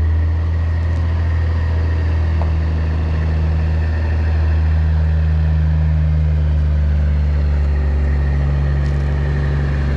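Grain truck's engine running steadily, a deep even drone with no change in speed.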